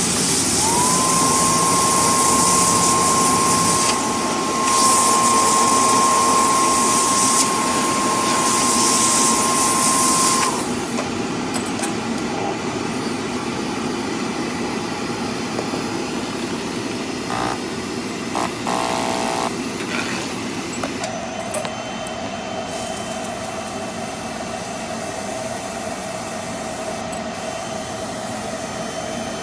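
A blower motor whines up to a steady high pitch over a loud hiss of blowing air that briefly dips a few times. Both stop together after about ten seconds, leaving a quieter steady machine hum and hiss; a second steady tone joins about two thirds of the way through.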